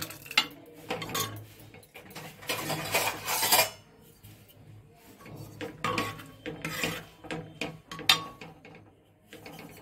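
Metal ladle scraping and clinking against the inside of a pressure cooker pot while scooping and stirring thick chana matar curry. The clinks are irregular, with a longer scrape about three seconds in and a sharp clink about eight seconds in.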